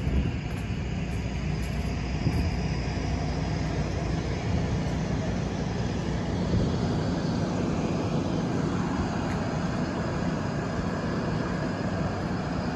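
SEPTA wash train's diesel engines idling with a steady low drone and hum.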